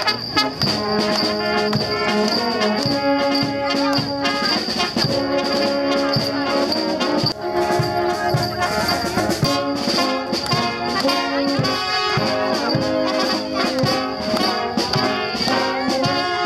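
Bavarian-style brass band playing a lively tune: tubas, baritone horns and trumpets in full chords over a steady bass-drum beat.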